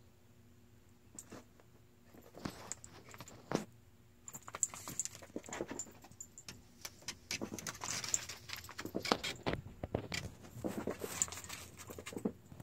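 Irregular light jingling and clicking, like a dog's collar tags, with scuffs. It is sparse at first and gets busier from about four seconds in as the dog moves about, and it ends with the dog rushing in.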